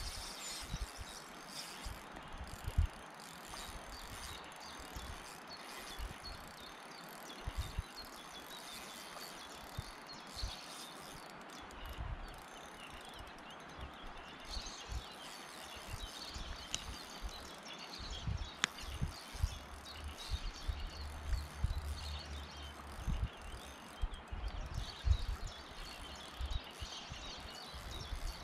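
A spinning reel on an ultralight rod being cranked while a hooked fish is played, a light ticking whirr over outdoor ambience, with irregular low thumps and a single sharp click about two-thirds of the way through.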